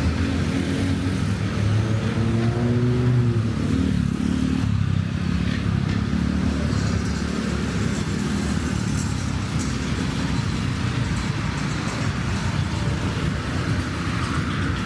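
Road traffic of cars and motorbikes passing close by, with steady engine rumble and tyre noise; about two seconds in, one engine rises in pitch as it speeds up.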